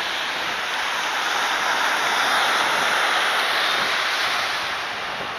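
Surf washing over the shallows: a steady rushing of water that swells about two seconds in and eases off near the end.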